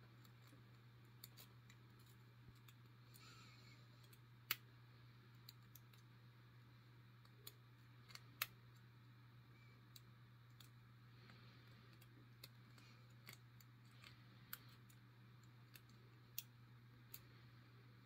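Faint, scattered metallic ticks of a lock pick working the pins of a five-pin Yale brass padlock under tension, with two sharper clicks about four and a half and eight and a half seconds in, over a low steady hum.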